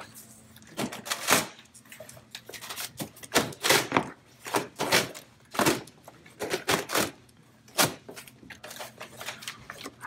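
Packaging being handled as a mini fridge is worked up out of its cardboard box: a string of short, irregular crinkles, scrapes and knocks from the plastic wrap and cardboard.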